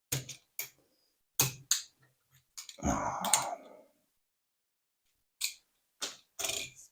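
Sharp clicks of small plastic tuning-kit parts being pulled off a die-cast toy car, scattered irregularly, with a short rustle a little before the middle.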